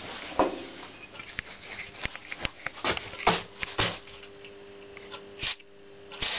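Scattered light clicks and knocks of handling over a faint steady hum, with two short hissing bursts near the end.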